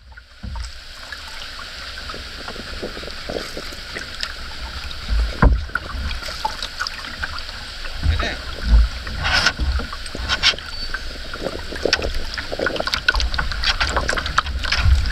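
A wooden canoe being paddled on calm water: paddle strokes splashing and dripping, with small knocks against the hull. Wind gusts rumble on the microphone.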